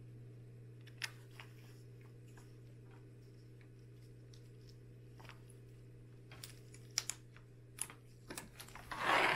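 Small scattered clicks and ticks of a plastic binder pin and magazine paper being handled with latex-gloved fingers, over a steady low hum. A louder paper rustle comes near the end.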